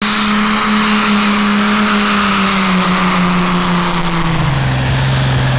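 Diesel engine of a Case IH Pro Stock pulling tractor running hard at high revs while it drags the weight-transfer sled. Its pitch sags slowly under the load, then drops lower about four seconds in.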